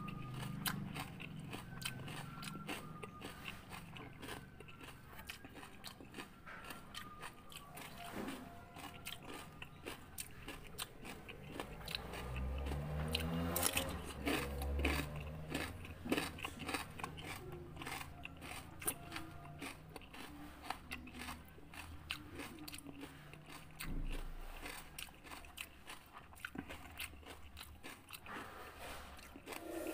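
Close-up biting and chewing of raw cucumber: repeated wet crunches as the flesh is bitten and chewed. About halfway through there is a short hummed sound.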